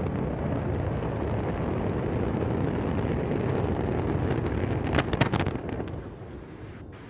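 Deep, steady rumble of an exploding Antares rocket and its fireball just after liftoff. A burst of sharp cracks comes about five seconds in, then the rumble dies down.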